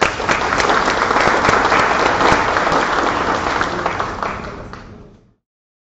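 Audience applauding: dense clapping that sets in at once, holds steady, then thins out and fades before cutting off near the end.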